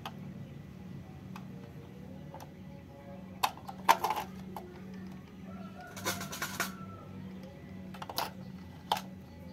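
Sharp clicks and knocks of hard plastic and batteries as AA batteries are fitted into a plastic toy train's battery compartment and the toy is handled. The clicks come in small clusters, the loudest about four seconds in, over faint steady background music.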